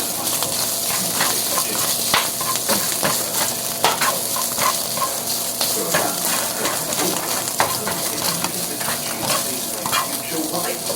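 Food sizzling in a frying pan, with a utensil scraping and clicking against the pan every so often as it is stirred.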